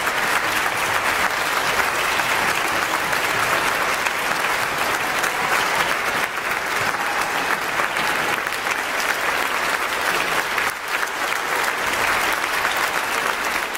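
Large audience applauding: a dense, steady clatter of many hands clapping that holds without a break.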